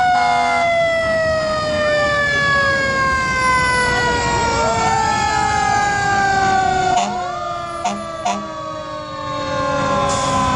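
Fire truck siren winding down: a wail that has just climbed fast now sinks slowly and steadily in pitch. Another short rising wail joins about halfway through, and two short, sharp sounds come close together near the end.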